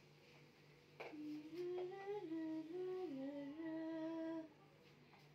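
A woman humming a short wordless tune in held notes that step up and down, starting about a second in and stopping near the end.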